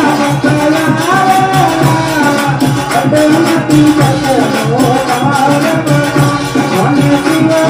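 Devotional bhajan music played loud: a gliding melody line over a steady, even drum beat.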